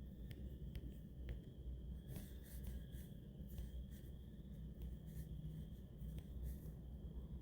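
Faint, irregular short clicks over a steady low hum and a faint high whine: quiet room tone.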